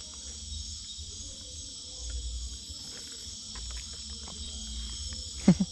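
Steady, dense high-pitched chorus of rainforest insects at night, with a low rumble underneath. Near the end there is a brief loud vocal exclamation.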